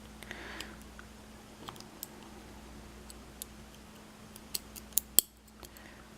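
Small, sharp metallic clicks and ticks of tiny lock pins, springs and a handling tool, scattered and coming in a quick run of louder clicks about four and a half to five seconds in.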